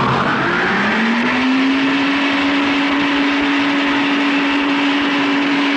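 Wind tunnel blower spinning up: its hum climbs in pitch over the first second or so, then holds steady at full speed over a loud rush of air, with the airstream brought up to about 210 miles per hour.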